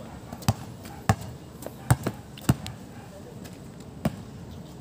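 Basketball being dribbled on a concrete court: sharp single bounces about twice a second, a pause after about two and a half seconds, then one more bounce near the end.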